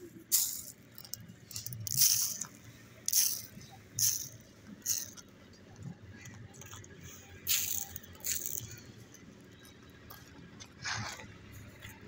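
Stone chips flung by hand from pans and scattering across a road surface, in separate hissing, rattling bursts about once a second or two, eight or so in all.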